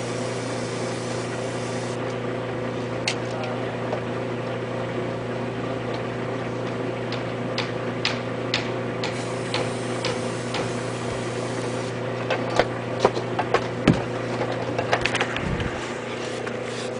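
A steady electrical hum with scattered sharp clicks and light knocks. The knocks come thicker and louder from about twelve seconds in.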